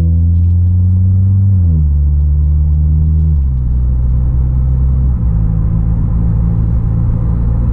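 Exhaust drone from the Skoda Octavia RS245's turbocharged 2.0 TSI four-cylinder with its Milltek and Borla GPF-back exhaust, heard inside the cabin from the rear seat while driving. It is a steady, deep hum that drops suddenly in pitch about 1.5 s in, again about 3.5 s in and once more about 5 s in, as the DSG gearbox shifts up.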